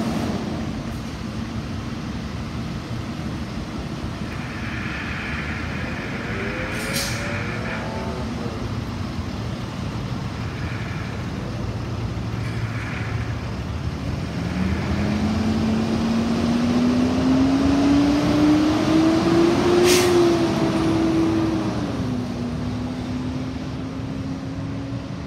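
Box ambulance's truck engine running as it pulls out, revving up with a rising pitch from about fifteen seconds in, then dropping back as it drives away. Two brief sharp hisses, about seven and twenty seconds in.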